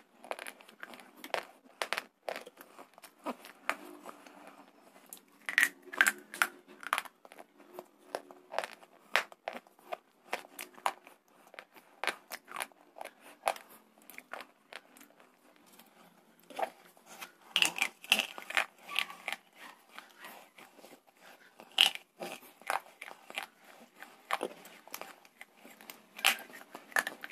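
Pieces of slate being bitten and chewed close to a microphone: a run of sharp, irregular crunches with quieter chewing between them.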